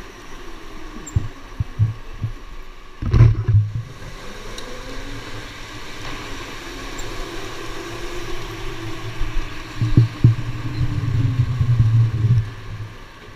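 Electric go-kart motor whining, its pitch rising and falling as the kart speeds up and slows through the corners, over low rumbling thumps from the kart. A sharp knock about three seconds in.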